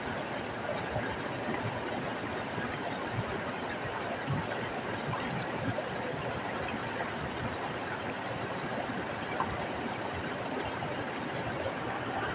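Small stream flowing over rocks: a steady rushing of water with many small flickers of splashing and gurgling.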